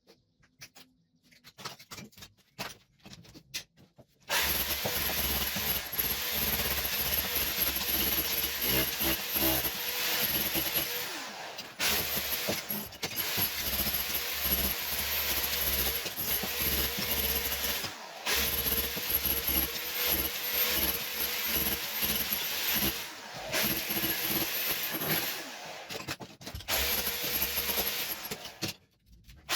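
An electric power tool starts after a few seconds of faint taps and runs in long stretches, stopping briefly several times, with a steady high whine over the noise. It is plausibly being used to strip old wall tiles in the kitchen.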